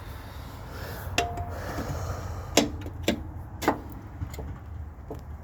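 Hand tools knocking and clinking against the mount hardware of a Honda Civic's engine bay: four sharp, separate knocks, the first with a brief metallic ring.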